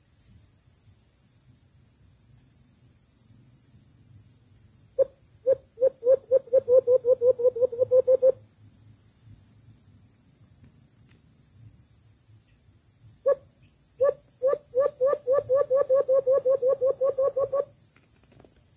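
Two runs of low hooting notes, each opening with a few spaced hoots that then speed up into a quick even series; this is the white-eared brown dove (alimokon) call, imitated to lure the bird to the bait. Faint insects keep up a high steady buzz underneath.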